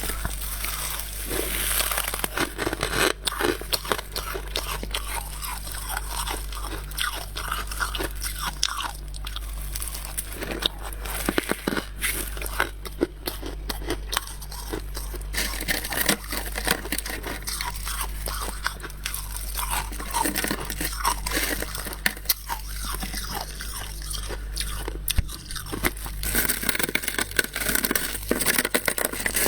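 Freezer frost being bitten and chewed: dense, continuous crunching, with a steady low hum underneath.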